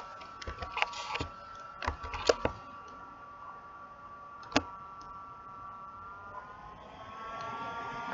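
Several sharp clicks from a computer mouse and keyboard, bunched in the first two and a half seconds with one more about four and a half seconds in, over a steady high hum. A hiss grows louder near the end.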